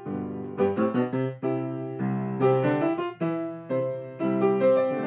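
Grand piano played freely improvised, chords in the left hand under a melody, with notes and chords struck in quick succession, several a second.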